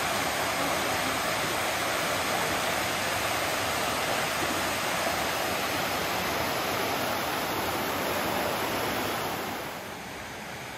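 Steady rushing of water, an even roar without pitch, which drops to a fainter steady hiss near the end.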